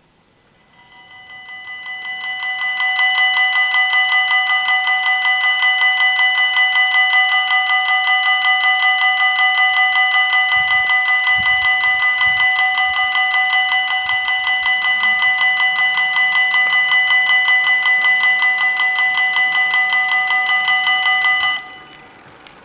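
Electronic bells of a Belgian level crossing ringing rapidly, warning of an approaching train. The bells swell in loudness over the first few seconds, ring steadily, then cut off suddenly about 21 seconds in, once the barriers are down.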